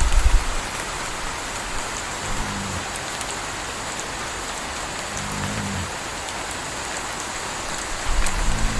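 Steady rain, with a puppy's soft snore about every three seconds. A deep low rumble sits under the rain at the start and comes back near the end.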